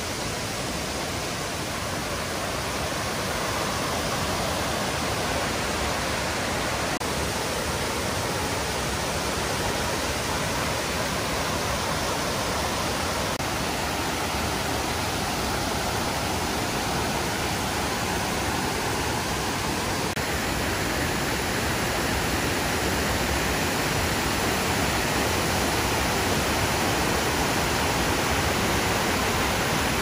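Fukiware Falls, a wide, low waterfall, with water rushing over a long rock ledge and pouring into the channel below in a steady, unbroken rush that grows slightly louder near the end.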